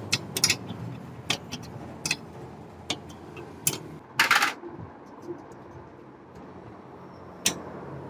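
Light metallic clicks and clinks of a hand tool working the 12 mm bolt under a Honda CG125's silencer bracket as it is undone. The clicks come irregularly, about one a second, with a short rasping scrape about four seconds in.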